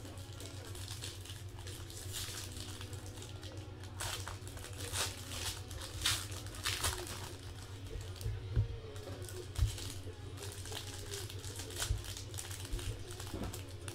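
Gold foil trading-card pack wrappers crinkling as they are handled, in scattered crackles throughout, with a couple of soft knocks a little past the middle, over a steady low hum.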